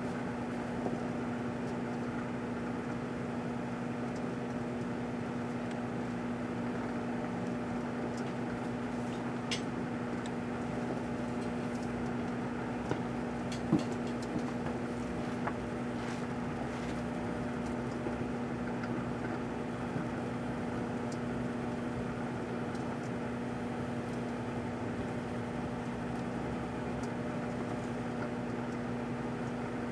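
Proctor-Silex microwave oven running with a steady electrical hum while it heats a plastic bottle of shampoo. A few small sharp clicks come in the middle, the loudest about 14 seconds in.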